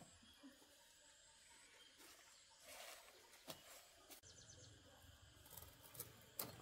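Near silence: faint outdoor ambience with a few soft clicks and knocks scattered through it.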